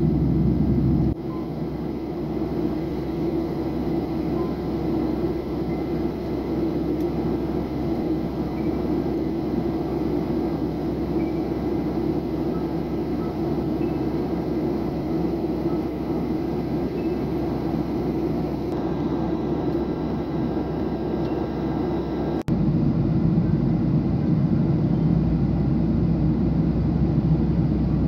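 Steady low rumble of a Ryanair Boeing 737's jet engines and rushing air, heard inside the cabin from a window seat in flight. The level drops suddenly about a second in and jumps back up about 22 seconds in.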